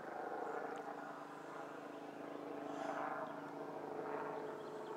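Distant helicopter droning steadily overhead, its sound swelling and easing a little.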